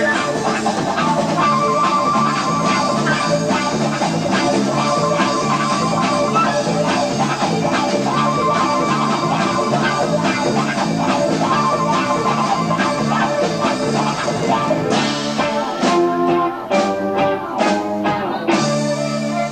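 Progressive rock band playing live, heard on an amateur tape: electric guitar leads over bass and drums in a steady, rhythmic passage. About fifteen seconds in, the band breaks into a run of short, stabbing hits together, then holds a chord near the end.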